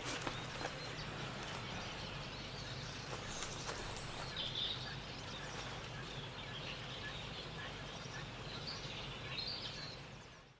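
Quiet winter woodland ambience: a steady soft hiss with a few faint, high bird chirps about four seconds in and again near the end, fading out at the very end.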